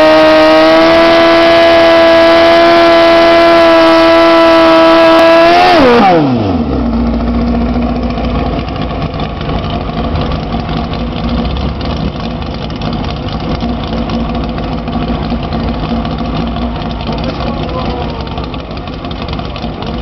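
Drag motorcycle engine held at high, steady revs for about six seconds during a burnout. The revs then drop off sharply and it settles to a low, uneven idle.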